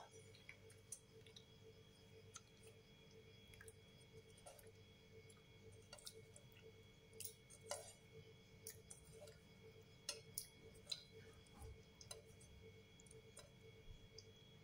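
Near silence: faint scattered ticks and small taps as raw peeled shrimp are put into a ceramic bowl of marinade, over a faint steady hum.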